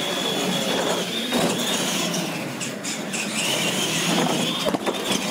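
Retro R/C monster trucks racing on a concrete floor: their electric motors and gearboxes whining, the pitch rising and falling with the throttle, with tyre noise and a couple of sharp knocks.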